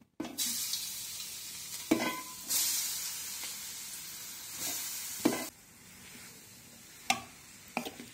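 Grated beetroot sizzling as it goes into hot ghee in a metal pan: a steady hiss that swells for a few seconds, then drops to a quieter sizzle about halfway through. A few sharp knocks come through as it is stirred.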